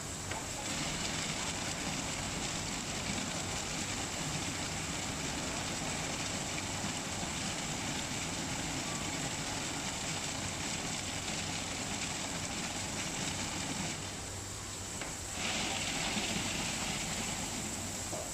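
Automatic tunnel car washing machine running: a steady noisy rush with a constant thin high whine and a low hum, dropping off briefly for about a second near the end before picking up again.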